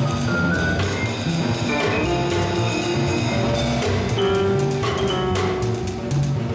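Jazz piano trio playing: grand piano, upright double bass and a Gretsch drum kit, with steady cymbal and drum strokes over the piano and bass lines.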